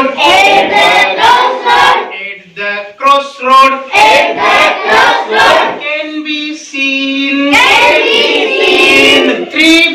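A class of young children singing a rhyme together in chorus, in short sung phrases with brief pauses between lines.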